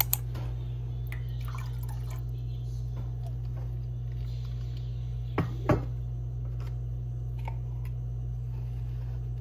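Eggs in a stainless steel saucepan of water heating on a gas burner: small ticks and drips over a steady low hum, with two sharp knocks close together about five and a half seconds in.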